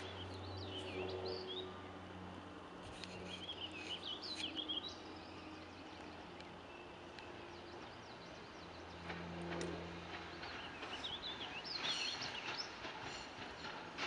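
Songbirds singing in short, warbling phrases on and off, over a steady low hum.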